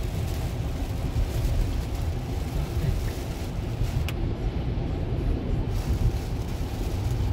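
Road noise inside a car cabin on a wet highway: a steady low rumble of tyres and engine under a hiss of rain and spray. The hiss drops away for about two seconds while passing under an overpass, and there is a single sharp click about four seconds in.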